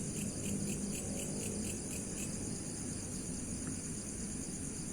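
Insects chirping: a steady high-pitched buzz, with a pulsed chirp at about four a second that stops about two seconds in.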